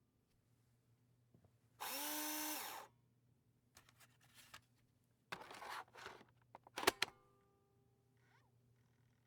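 Cordless drill-driver running for about a second, spinning up and winding down as it backs out a bolt. About three seconds later come a brief scraping rustle and a few sharp clicks.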